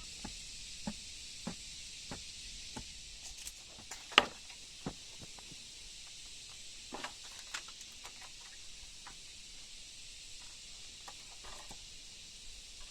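Scattered light knocks and clicks, roughly one a second at first, with one sharper click about four seconds in, over a steady faint high hiss.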